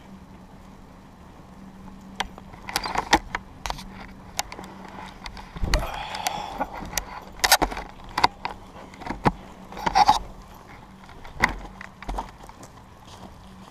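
Handling noise of a wearable camera being jostled: irregular clicks, knocks and rustles of clothing and gear against the microphone, busiest in the middle and thinning out near the end.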